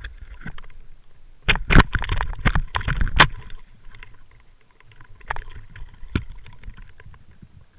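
Water splashing and sloshing against a Waterwolf underwater camera as it is moved through the surface, picked up by the camera's own microphone. There are knocks on the housing, with a loud flurry of splashes and knocks from about one and a half to three and a half seconds in, then a few single knocks.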